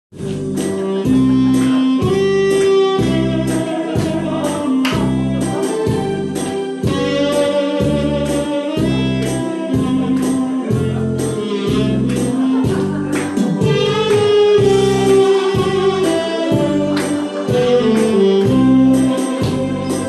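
Instrumental introduction of a Korean trot backing track: a steady beat about twice a second under a sustained melody line.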